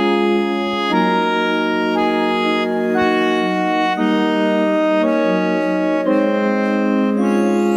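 Electronic keyboard playing hymn accompaniment in an organ-like voice: sustained chords that change about once a second, with no singing.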